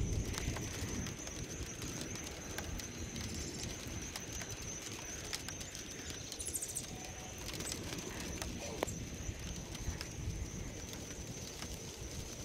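Outdoor storm ambience as a thunderstorm approaches: a low, steady rumbling noise with a thin steady high-pitched tone over it and scattered faint ticks.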